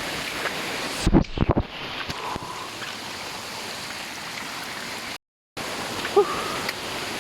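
Rushing stream water, a steady hiss, with a few loud knocks about a second in.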